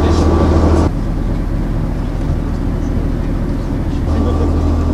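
A tour boat's engine running steadily with a low hum. About a second in the sound cuts to a quieter, rougher rumble, and the steady hum comes back near the end.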